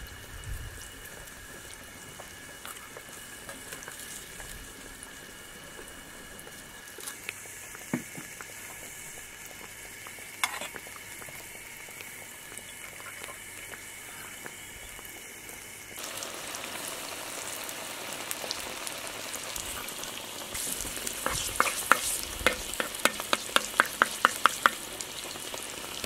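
Skewered strips of dough frying in hot oil in a wok, a steady sizzle that starts about two-thirds of the way through. Near the end comes a quick run of sharp clicks, about four a second. Before the frying there are only a few isolated knocks over a quiet background.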